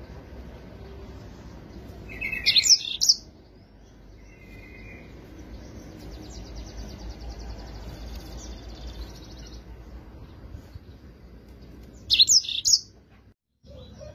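Yellow-fronted canary singing in two short, loud bursts of quick high notes, one about two seconds in and one near the end. A faint, fast trill runs between them over a low, steady background rumble.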